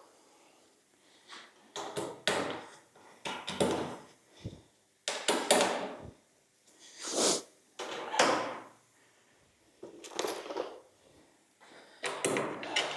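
About ten short, noisy handling sounds at irregular intervals, with no tone or steady rhythm: the scrapes and knocks of hands-on workshop work.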